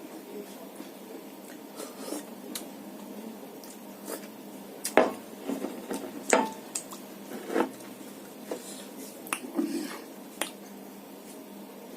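A person eating a meal of rice and fish curry: irregular wet squishes and sharp clicks of food against a dish, the loudest about five and six seconds in.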